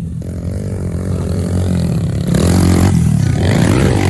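Off-road vehicle engine running, then revving and getting louder a little past two seconds in.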